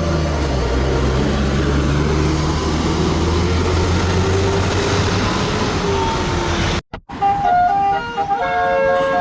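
A tour bus's engine running loud with road noise as it passes. After a brief cut about seven seconds in, a telolet multi-tone bus horn plays a short stepped melody.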